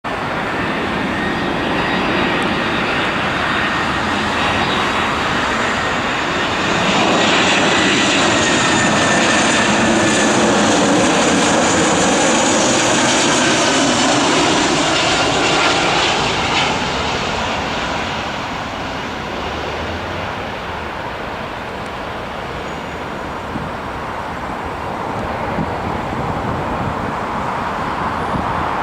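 Airbus A320 jet airliner coming in to land, its jet engines growing louder. The engine noise is at its loudest for about ten seconds, with tones falling in pitch as the plane passes, then it fades.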